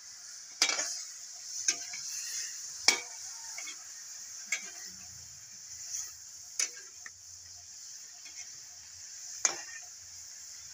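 Metal ladle stirring food in a wok over a wood fire, scraping and clanking against the pan at irregular intervals every second or few, over a steady high sizzle of the frying food.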